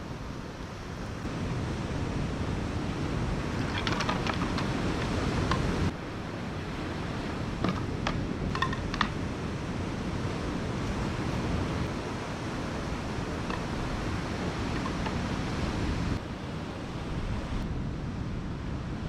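Ocean surf washing on a beach, with wind buffeting the microphone; a few faint short high sounds come through about four seconds in and again around eight to nine seconds.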